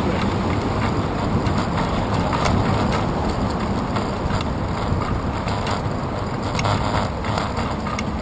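Bicycle rolling over concrete pavement, heard through a handlebar-mounted camera: a steady low rumble of road vibration and wind on the camera, with scattered small ticks and rattles from the bike.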